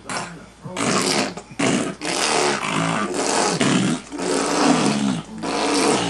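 A man blowing raspberries: about half a dozen loud, wet, buzzing lip trills in quick succession.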